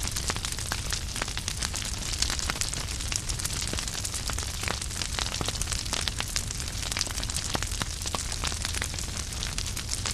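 Wood fire burning in a fireplace: logs crackling with frequent sharp irregular pops over a steady low rumble and hiss of the flames.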